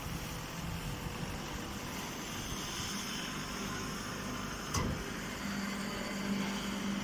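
Grass baling machine running with a steady mechanical noise. There is one sharp knock a little under five seconds in, and a steady hum joins about half a second later.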